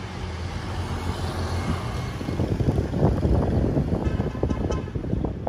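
A car on the move: steady low engine and road rumble that grows louder and rougher from about halfway through.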